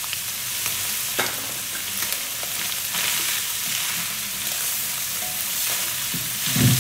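Shredded chicken fillet frying in hot oil with spices, a steady sizzle, with scattered clicks and scrapes of a utensil stirring it in the pan and a low bump near the end.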